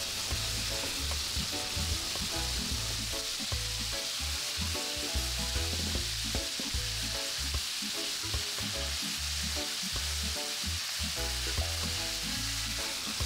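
Chicken pieces deep-frying in hot oil, a steady sizzle.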